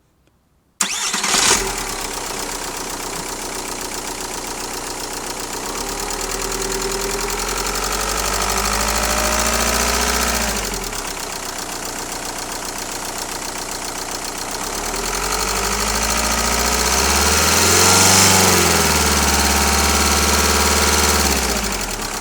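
Volkswagen Golf 4's 1.9 TDI four-cylinder diesel engine starting about a second in, then idling and being revved up slowly and back down twice. This is the strange engine sound that the uploader connects with the EGR system.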